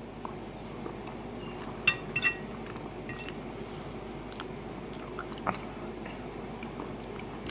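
Close-up chewing of a mouthful of chili and rice, with a few short sharp clicks and mouth smacks over a steady background hiss.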